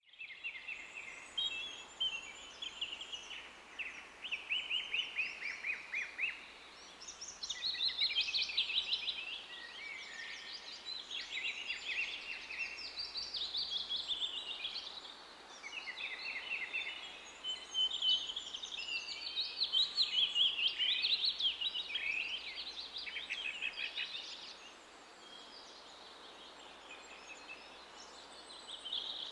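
Birds singing: a run of quick trills and chirps that comes and goes, easing off for a few seconds near the end.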